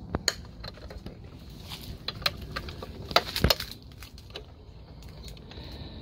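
Wire cutters snipping and working the metal wire of a suet cage on a bird feeder: a series of sharp metallic clicks, with the loudest cluster a little past the middle.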